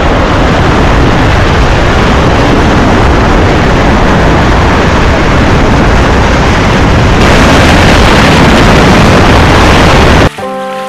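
White-water river rapids rushing and breaking around an inflatable raft, a very loud steady roar with no let-up. Near the end it cuts off suddenly and music takes over.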